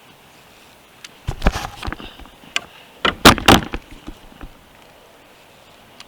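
Two short bursts of knocking and clattering, hard objects bumping on the kayak, about a second and three seconds in.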